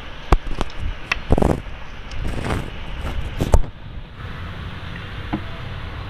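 Hands tearing a potato-stuffed paratha over a ceramic plate: scattered taps, knocks and rustles, the loudest knock about three and a half seconds in, then a steadier background noise with a low hum.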